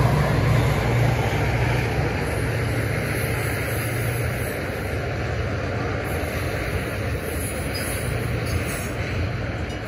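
Freight train hopper wagons rolling over a level crossing: a steady rumble and clatter of wheels on the rails, with the low hum of the diesel locomotives ahead slowly fading.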